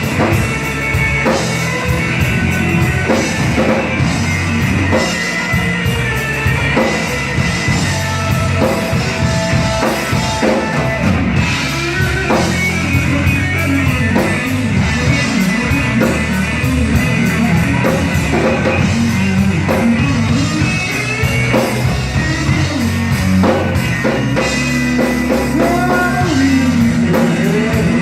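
Live slow blues from an electric guitar, bass and drum trio, the electric guitar playing a lead line full of bent notes over the bass and drums.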